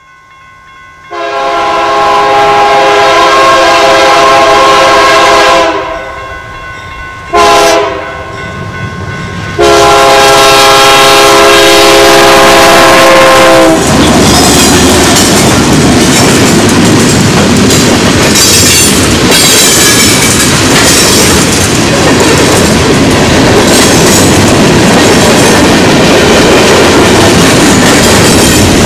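BNSF GE C44-9W (Dash 9-44CW) freight locomotive's air horn sounding a long blast, a short one and another long one, the pattern of a grade-crossing signal. The three-unit GE consist then passes close by, followed by freight cars rolling past with a steady rumble and wheel clatter over the rail joints.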